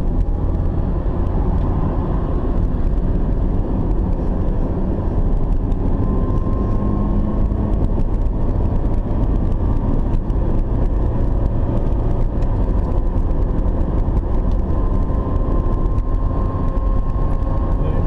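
Steady running noise of a car heard from inside its cabin while driving at speed: engine drone and tyres on tarmac.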